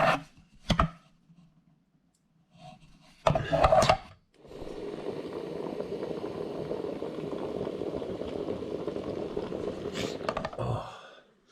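A few light clicks and a knock, then a steady stream of liquid running into a cup for about six seconds, as coffee is made.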